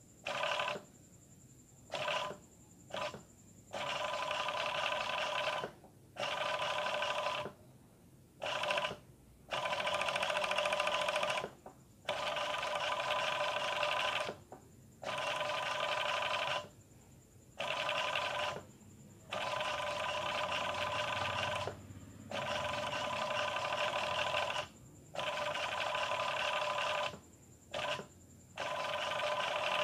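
Industrial overlock sewing machine stitching a picot edge on fabric and lace, starting and stopping in short runs of half a second to about three seconds, with a steady whine while it runs.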